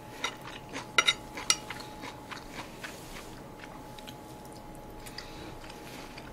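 Metal chopsticks clinking against a ceramic plate while picking up food: a few sharp, ringing clinks in the first second and a half, then softer scattered ticks.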